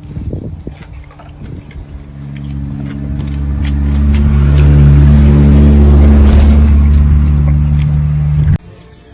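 A loud, low drone with a steady pitch swells over a few seconds, holds, and then cuts off abruptly near the end.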